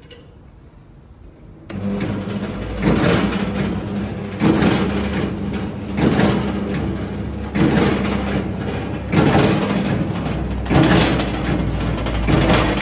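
Kadıoğlu CKK300 walnut-cracking machine starting up about two seconds in and running empty, with a steady motor hum that swells louder about every second and a half.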